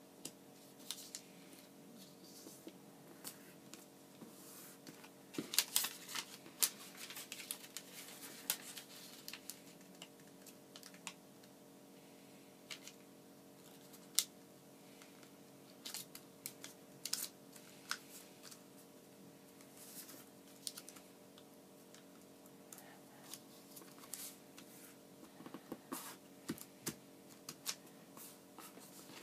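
Origami paper being folded and creased by hand against a tabletop: scattered crisp crackles and light taps, busiest in a few short spells, over a faint steady hum.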